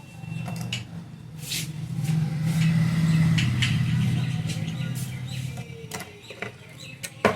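A motor vehicle's engine hum swells and then fades as it passes, with scattered light clicks and taps, and one sharp click near the end.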